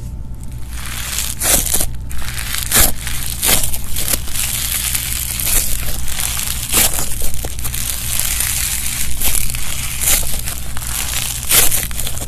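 Slushee slime being squeezed and worked by hand, making a continuous crunching, crackling sound with irregular louder crackles.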